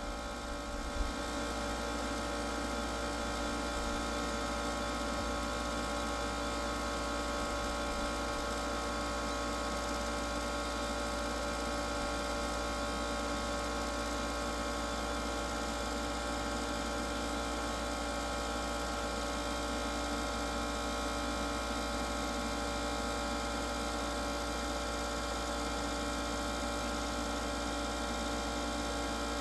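Traeger pellet grill running with its lid open, a steady electric hum from its fan that holds unchanged throughout.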